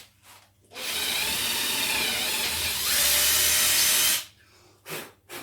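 Power drill running as it bores a hole, for about three and a half seconds, getting louder about three seconds in.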